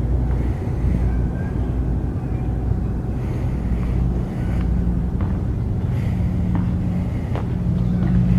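Large engine or heavy machinery running steadily with a low rumble, and a few short sharp knocks now and then.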